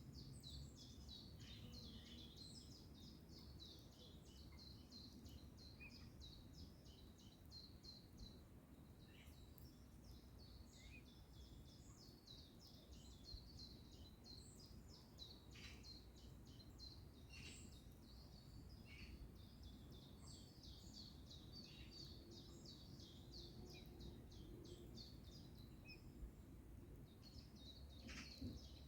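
Faint birdsong: a dense run of rapid high chirps, several a second, with scattered short falling calls over a low background rumble.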